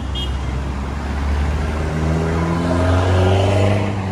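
A motor vehicle engine accelerating: its pitch climbs from about a second and a half in and is loudest near the end, over a steady low rumble.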